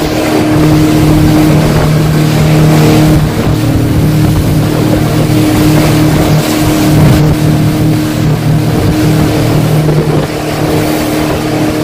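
A 115 hp Yamaha outboard running steadily on a small boat under way, over loud rushing wind and water, with spray splashing up about halfway through.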